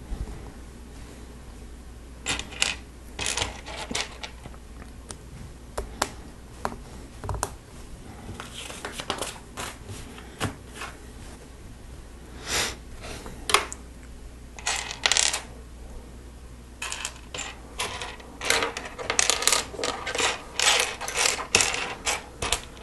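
Loose plastic Lego pieces clattering and clicking as hands sift through a pile of unsorted parts, in irregular bursts that get busier toward the end.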